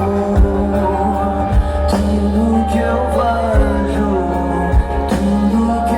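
A band playing a Portuguese pop song: steady bass, drum hits and a sung melody.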